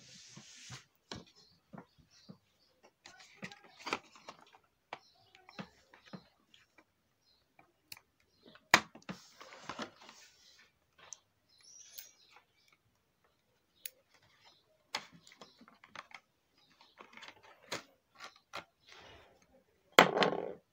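Hands handling a doll's cardboard-and-plastic packaging: scattered clicks, scrapes and short rustles, with a loud rustling burst near the end.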